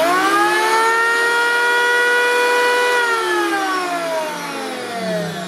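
Sturm P1015 1.5 kW electric planer motor and cutter drum running with no workpiece. It spins up to a steady high whine in about a second, then is switched off about three seconds in and winds down with a slowly falling pitch.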